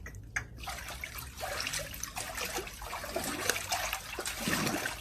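Water running and splashing, a steady trickle with many small splashes.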